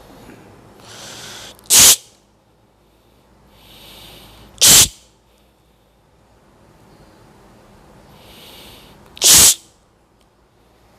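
A person's forceful breath sounds, three times a few seconds apart: each time a drawn-in breath rises for about a second, then a sharp, loud burst of air cuts off quickly.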